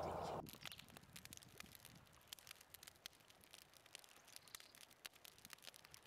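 Near silence with faint scattered crackles and ticks. A louder hiss, like wind outdoors, cuts off about half a second in.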